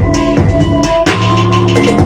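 Electronic music with a steady drum beat and held organ-like keyboard chords, played loudly through an iBall Studio L8 tower speaker in a sound test.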